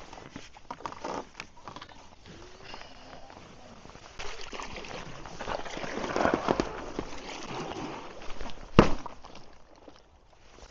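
River ice being broken from a stand-up paddle board: irregular cracking, crunching and sloshing of ice and water. The crunching thickens in the middle, and a single sharp knock, the loudest sound, comes near the end.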